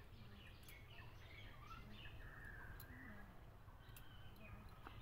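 Faint outdoor ambience of birds chirping and calling, many short high calls scattered throughout, over a low steady background rumble.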